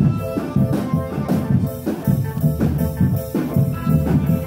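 Live Indonesian drumband playing: marching drums beating a fast, steady rhythm with a pitched melody over it.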